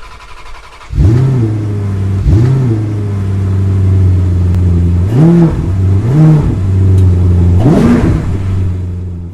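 Car engine idling and blipped five times, each rev rising and falling in about half a second over a steady low hum, fading out near the end.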